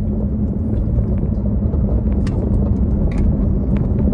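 Steady low rumble of a car's engine and road noise heard inside the cabin while driving, with a faint steady hum underneath.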